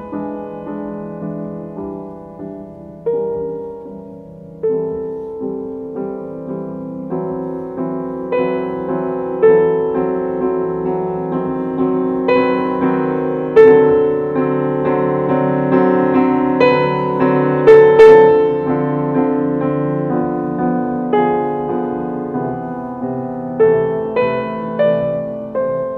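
Background music on solo piano: a slow melody of single struck notes that fade away one after another, quieter at first and louder toward the middle.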